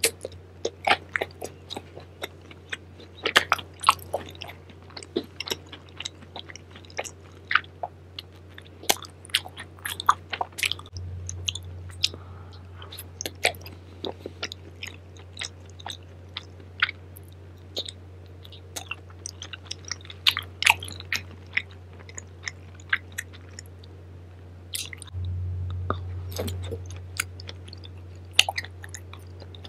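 Close-miked chewing of tteokbokki and fried snacks, with frequent sharp mouth clicks and crunches, over a steady low hum.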